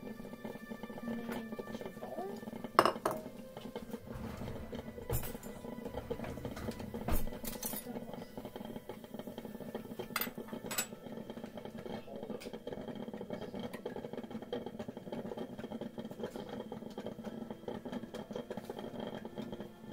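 A ceramic bowl and a metal spoon set down on a stone countertop: a few separate clinks and knocks, the loudest about three seconds in, the last around eleven seconds, over a steady background hum.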